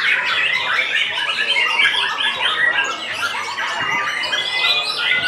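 White-rumped shama singing a fast, unbroken run of loud, varied whistles and chattering notes, with other caged birds singing over it.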